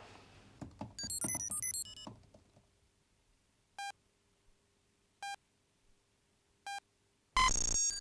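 Electronic computer-interface sound effects: a quick run of stepped synthetic bleeps, then three single beeps about a second and a half apart, then a loud buzzing tone near the end followed by another run of bleeps.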